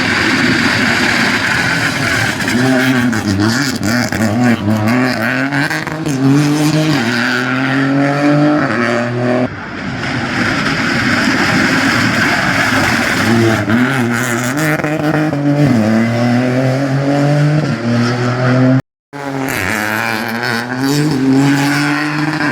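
Peugeot 208 rally car engine driven hard, its note climbing through the revs and falling back at each gear change or lift, several times over. The sound cuts out for a moment about nineteen seconds in.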